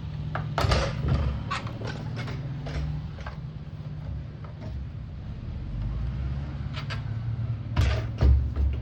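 Clicks and plastic clatters of hands working on a fuel pump module, disconnecting a hose and freeing the stuck fuel-level float. The clicks come in a run over the first few seconds and again in a louder pair near the end, over a steady low hum.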